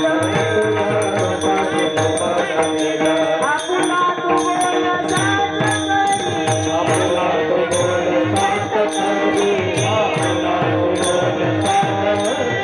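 Kirtan devotional music: a held drone under a quick, steady drum rhythm, with small cymbals or jingles striking on each beat.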